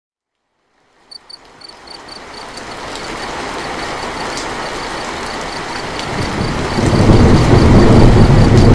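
Heavy rain fades in as a steady hiss after about a second of silence, with a faint high tick repeating a few times a second. From about six seconds in, a low rumble of rolling thunder builds and becomes the loudest sound.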